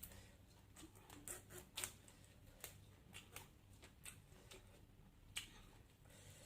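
Faint eating sounds: a scattered run of soft clicks and taps from chewing and handling food, about a dozen over the span, the sharpest near the end of the first two seconds and about five seconds in.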